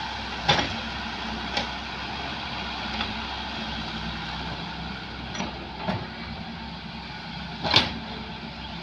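Hitachi excavator's diesel engine running steadily, with about six sharp knocks spread through, the loudest near the end.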